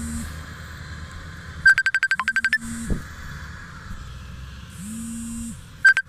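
Smartphone ringing with an incoming call: a burst of rapid electronic beeps about two seconds in and a short one near the end, with the phone's vibration motor buzzing in between, each buzz rising and then holding for about a second.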